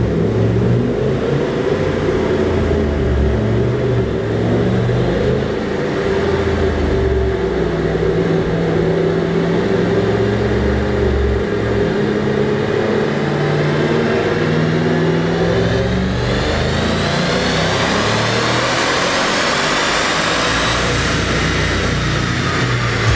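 Twin-turbocharged 2012 Ford Mustang GT 5.0 V8 (Hellion twin-turbo kit at 10 psi, built short block) running on a chassis dyno at lower revs, then a full-throttle pull starting about two-thirds of the way in, the pitch climbing steadily for about five seconds before levelling off near the end.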